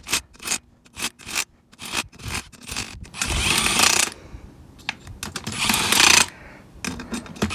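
Impact wrench run in two short bursts, at about three and five and a half seconds in, lightly snugging down the beadlock ring bolts. A run of quick clicks and taps comes before them.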